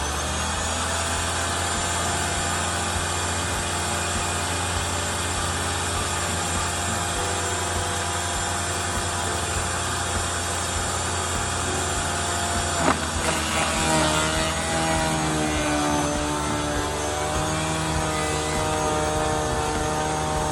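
Garden wood chipper's motor spinning up to speed and running steadily. About 13 seconds in there is a sharp knock, and the motor's pitch then wavers as wood is fed in and loads it.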